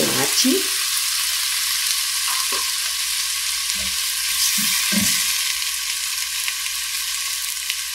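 Diced tomato sizzling steadily in hot olive oil with sautéed onion, stirred in the pot with a silicone spatula.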